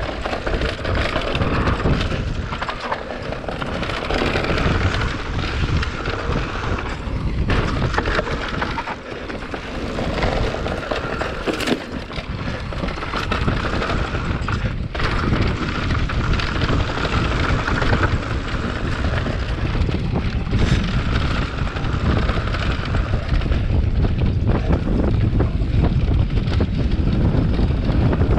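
Wind rushing over the microphone and mountain bike tyres rolling over a dirt singletrack, with rattles and knocks from the bike over the rough ground. The loudness dips and surges as the speed changes.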